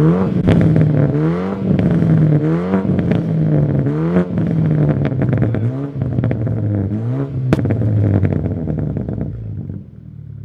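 BMW F30 3 Series sedan's engine and exhaust being revved hard, the pitch climbing and falling about six times with two sharp cracks, then dropping back to idle near the end.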